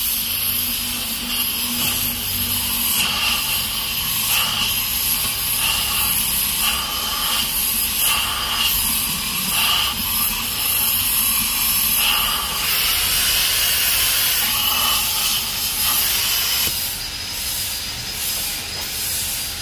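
Gas cutting torch burning with a loud, steady hiss, its flame pushed deep inside a motorcycle muffler to cut out the internal baffles.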